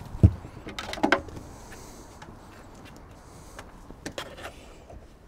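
A dull thump about a quarter of a second in, then rustling and clattering, and a few light clicks later on, as a charging cable is handled in a car's open boot.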